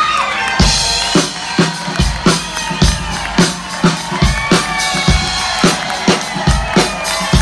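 Live band starting a song: a drum kit beat comes in about half a second in, a steady bass drum and snare pulse with cymbals, with sustained instrument tones above it.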